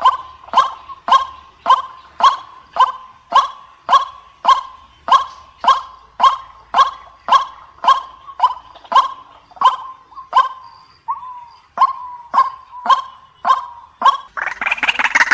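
White-breasted waterhen calling: a monotonous series of sharp, evenly spaced single notes, about two a second. About a second before the end a louder, harsher jumble of calls breaks in.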